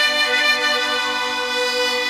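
Harmonica holding a sustained chord.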